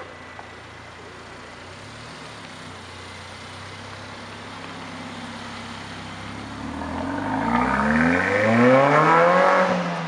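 Mercedes-AMG A45's turbocharged 2.0-litre four-cylinder rolling past at low revs, then accelerating hard from about seven seconds in, its note rising steadily in pitch and getting loud near the end as the car pulls away.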